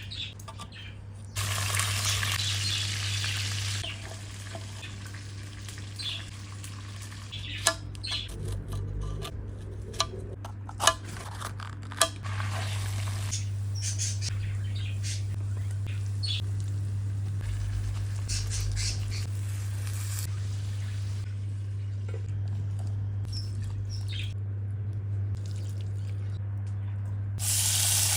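Outdoor wood-fire cooking: the fire crackling with sharp pops, short bursts of hiss near the start and at the end, and birds chirping, over a steady low hum.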